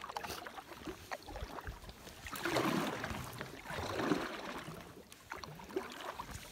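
Double-bladed kayak paddle stroking a solo canoe through calm river water: two swishing strokes about a second and a half apart, with small clicks between.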